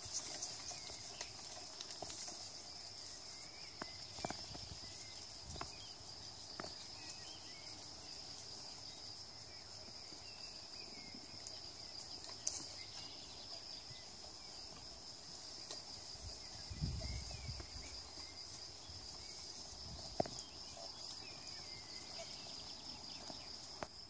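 Steady high insect chirring, with scattered light knocks and rustles from goats stepping and browsing among twigs and grass. A brief low rumble comes about two-thirds of the way through.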